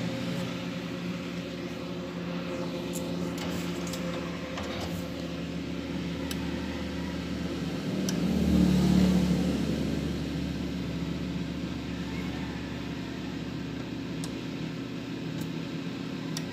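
Steady electric motor hum from an egg incubator, with a few light clicks; the hum grows louder for about two seconds in the middle.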